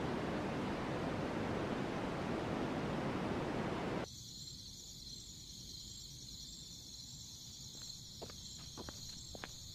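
Ocean surf washing up on a beach, a steady rush that cuts off suddenly about four seconds in. Crickets then chirp steadily, and near the end a run of footsteps begins.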